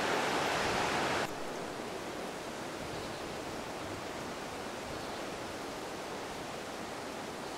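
Surf washing against the rocks of a small cove, an even rushing noise, which drops suddenly to a quieter steady hiss about a second in.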